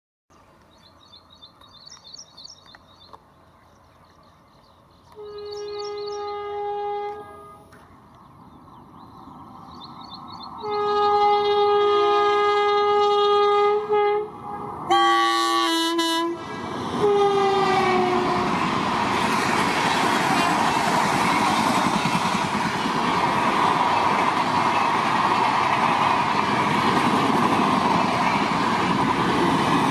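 Indian Railways WAP-7 electric locomotive sounding its horn as it approaches: a blast about five seconds in, a longer one from about eleven seconds, and a short one around fifteen seconds whose pitch drops as the locomotive passes. Its LHB coaches then speed past with a loud, steady noise of wheels on the rails.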